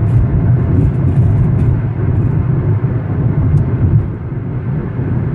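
Steady rumble of a moving car heard inside its cabin: road and engine noise, a little quieter near the end.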